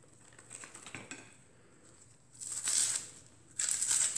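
Crisp tearing and crunching of the tough outer leaves of sponsali onions as they are cut and pulled away with a small knife, with faint clicks early and two louder crackling bursts in the second half.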